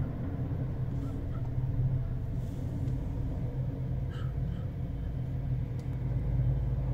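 Steady low rumble of a Black Hawk helicopter's rotor and turbine engines running over a city street, mixed with road traffic.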